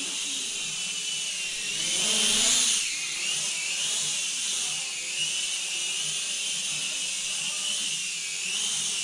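MakeTheOne M2 (Mould King Super-F) mini quadcopter in flight, its small motors and propellers giving a high-pitched whine that wavers up and down in pitch as the throttle changes. It swells louder about two seconds in.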